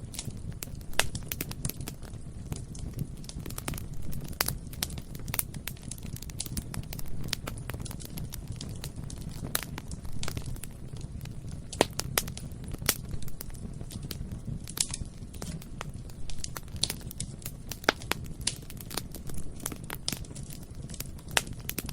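Bonfire burning: a steady low rumble of flame with dense, irregular crackling and snapping of burning wood, and a few louder pops.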